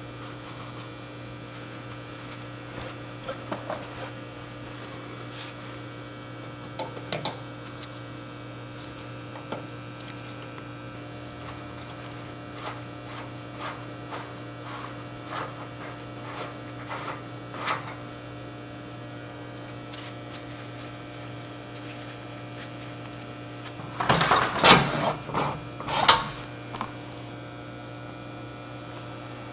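Steady electrical mains hum, with scattered light clicks and knocks from hand work on a greasy wheel hub. A louder cluster of clattering knocks comes about 24 to 26 seconds in.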